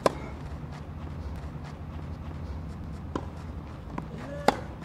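Tennis racket hitting the ball: a sharp forehand strike at the start and a two-handed backhand strike about four and a half seconds later, with a few fainter knocks between, over a steady low hum.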